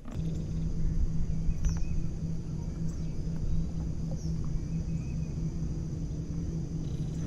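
Bass boat's outboard motor running steadily, a constant low hum over rumble.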